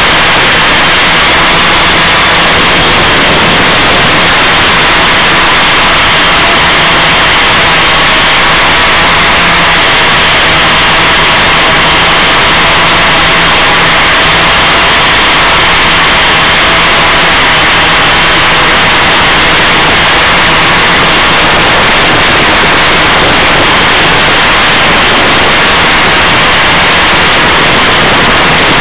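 Loud, steady static hiss from an FPV analog video link's audio channel, recorded at the ground receiver, with a few faint steady hum tones underneath.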